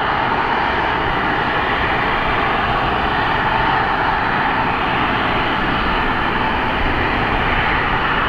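Embraer 175 regional jet's twin CF34 turbofans running at low thrust as the jet rolls slowly into takeoff position: a steady jet hiss with a whine near the middle of the range, no spool-up yet.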